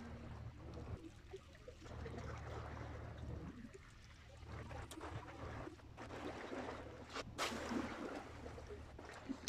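Sea water lapping and splashing below, over a steady low rumble of wind on the microphone, with a brief louder rush about seven seconds in.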